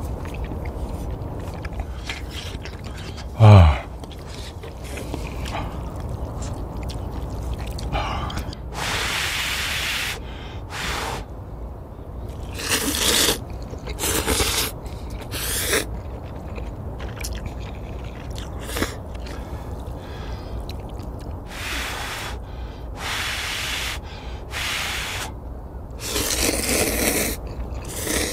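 Noodles and broth of a spicy seafood ramyeon being slurped loudly, in a string of short slurps with pauses between, the longest near the end. About three and a half seconds in, a short sound falling steeply in pitch is the loudest moment; a steady low rumble runs underneath.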